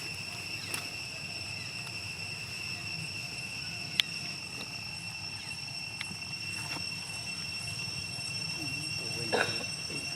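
A steady high-pitched drone over a low hum, with a sharp click about four seconds in and another about six seconds in, and a short voice-like sound near the end.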